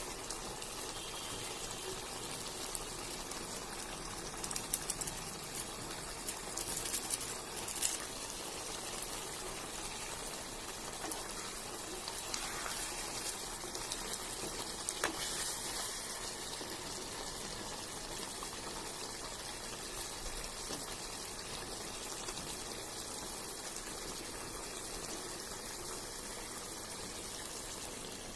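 Fish curry gravy simmering in a pan: a steady bubbling hiss, with a few sharper pops between about five and eight seconds in and again about fifteen seconds in.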